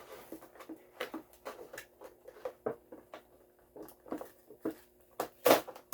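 Plastic blister and cardboard toy-car packaging being handled and pried at: a string of irregular clicks, taps and crinkles, the loudest about five and a half seconds in.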